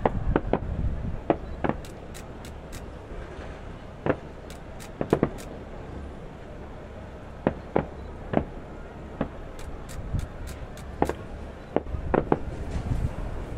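Aerial fireworks bursting in an irregular series of sharp bangs and crackles over a steady low rumble.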